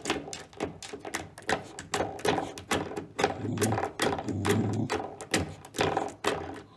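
Brass spring door stop on a baseboard being flicked over and over by a puppy's paw, twanging with a quick, uneven run of metallic boings, about three a second.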